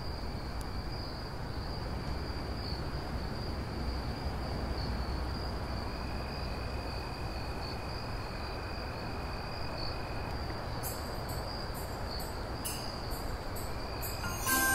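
Crickets chirping in a steady, high continuous trill over a low ambient hum. From about two-thirds of the way in, short bright high bursts start, and music comes in at the very end.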